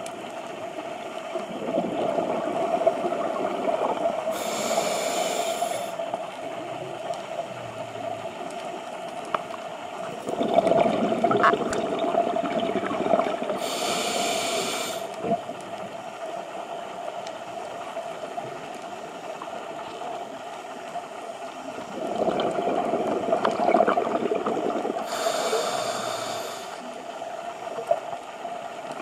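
Scuba diver breathing through a regulator underwater: three slow breaths about ten seconds apart, each a rush of exhaled bubbles and a short hiss of inhaled air. A steady hum runs underneath.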